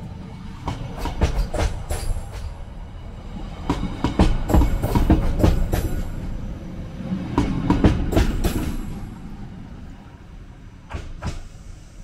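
Blue Line Park beach train passing on its coastal track: a low rumble with wheels clacking over the rail joints, swelling in the middle and fading away near the end.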